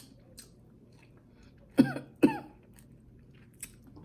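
A woman coughing twice in quick succession, about half a second apart, with a few faint mouth clicks around the coughs.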